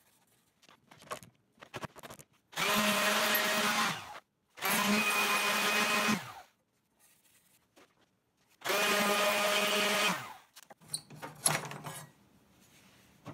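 Random orbit sander with 60-grit paper run in three short bursts of about a second and a half each, sharpening the edge of a steel lawn mower blade. Light clicks and knocks of handling come between the bursts.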